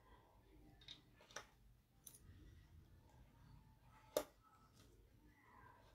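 A few faint clicks and taps of small rings being handled and put away on a desk, the loudest about four seconds in.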